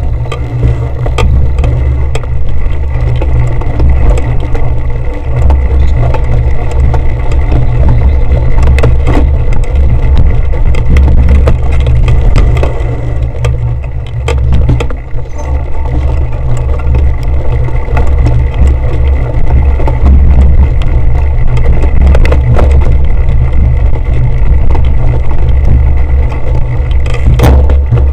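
A cyclocross bicycle ridden over bumpy grass, heard through an on-board action camera: a loud, steady low rumble of wind and vibration on the microphone, with constant rattling clicks from the bike's frame and drivetrain.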